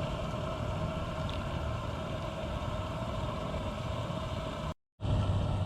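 Engine idling steadily, a constant pitched hum over a low rumble. Near the end it cuts out for a moment and comes back as a steadier low hum.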